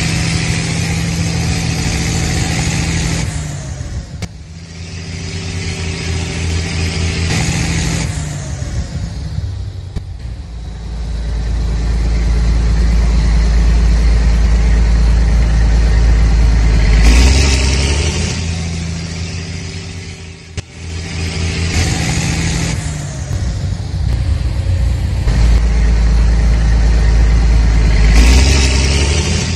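Tractor engine running, revving up and easing back down several times, with short dips in level about 4, 10 and 20 seconds in.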